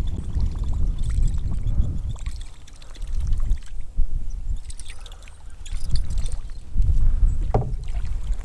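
Kayak being paddled: paddle strokes in the water in repeated surges about every second or two, with a few sharp knocks against the hull, over a low wind rumble on the microphone.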